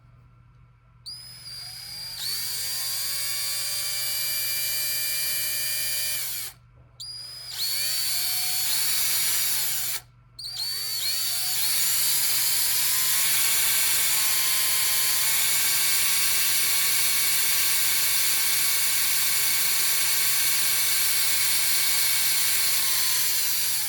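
DeWalt drill's electric motor run in three bursts on a test after its brush springs were refitted. Each burst spins up with a rising whine; the first is about five seconds, the second about three, and the last runs on steadily, rising a step in pitch twice partway through. It is running after a repair to a drill that had smoked under load.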